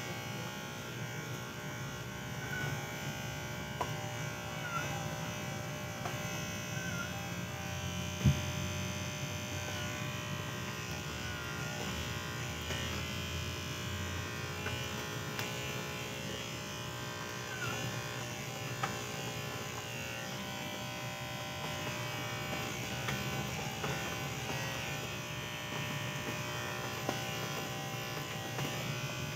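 Electric hair clippers running steadily while cutting hair, a constant buzz with one sharp knock about eight seconds in.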